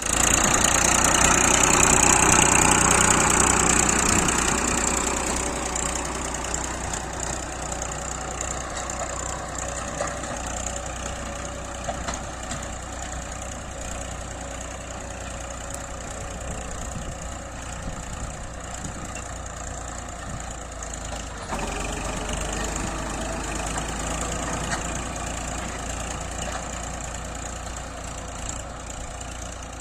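An engine running steadily, loudest over the first four seconds, then settling to an even level with a slight rise at about twenty-one seconds.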